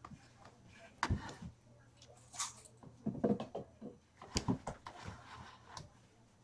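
Scattered light knocks, taps and rustles, a few clusters about a second apart with the loudest about four and a half seconds in, from a kitten moving about among plastic and cardboard cat toys on the floor.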